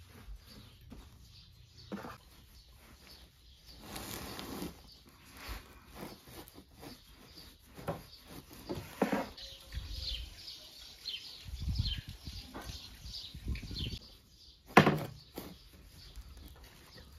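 Scattered knocks and clatter of things being handled, with one sharper knock near the end, over faint bird chirps.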